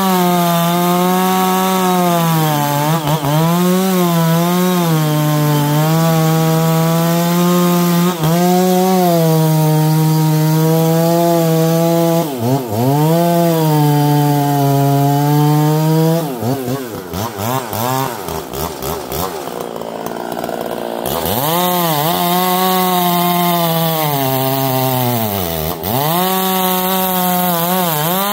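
Two-stroke chainsaw running at high revs and cutting wood, its pitch dipping briefly several times as it bogs under load. Past the middle it goes quieter and uneven for a few seconds, then picks back up to full speed.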